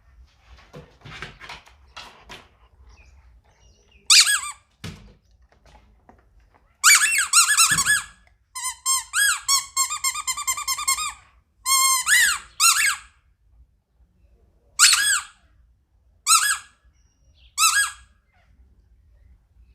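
Squeaky sound-ball toy squeaking in sharp, high-pitched bursts: single squeaks, a long squeal, and a quick run of short squeaks about four a second in the middle.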